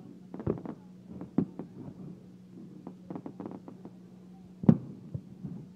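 Aerial fireworks shells bursting in a string of sharp bangs and pops, the loudest about three-quarters of the way through, over a steady low hum.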